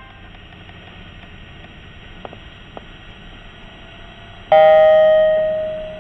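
Low steady background noise with two faint clicks. About four and a half seconds in, a single electronic chime note from the train's public-address system strikes loudly and fades away, signalling that an announcement follows.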